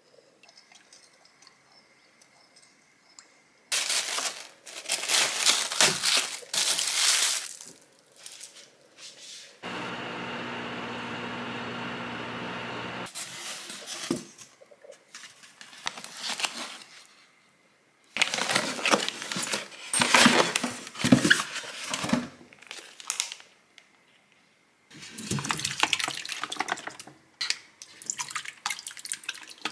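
Kitchen handling noises in separate bursts, with a steady hum lasting about three seconds in the middle. Near the end, raw shucked oysters and their liquid are poured from a plastic bag into a metal strainer in a stainless steel sink, with liquid splashing.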